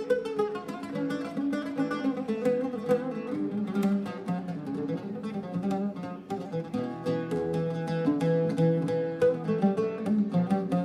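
Background music led by plucked strings, with quick, evenly picked notes.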